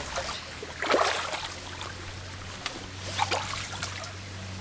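Shallow creek water splashing twice, about a second in and again near three seconds, as someone moves in it, over the steady trickle of the stream.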